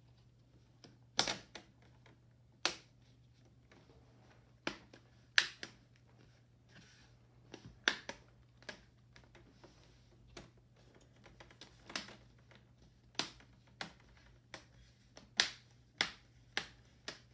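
Plastic screen-bezel clips of an HP Notebook 15 laptop snapping into place one by one as the bezel is pressed back on: sharp single clicks at irregular intervals, some in quick pairs.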